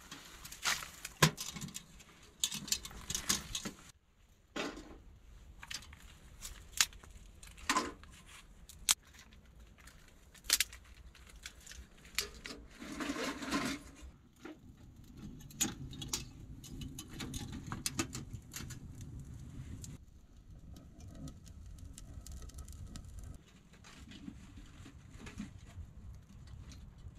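Dry twigs snapping and crackling as kindling is broken up and packed into a small sheet-metal wood stove: a quick run of sharp cracks in the first few seconds, then sparser single snaps and a short rustle about 13 seconds in. The last several seconds are a quieter background with no snapping.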